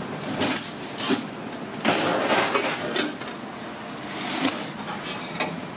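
Irregular knocks and scrapes of a large alligator gar and a long metal skewer being handled on a stainless steel sink.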